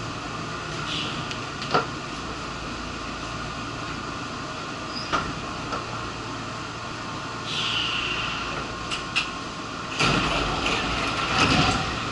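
Interior of a stopped Nankai commuter train: a steady low hum with a few short air hisses and sharp clicks, then the car's passenger doors slide open about ten seconds in.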